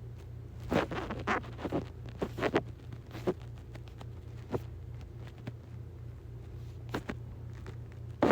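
Scattered clicks and scratchy taps, bunched in the first two seconds and then a few single ones, over a steady low electrical hum: handling noise at a computer desk while browsing.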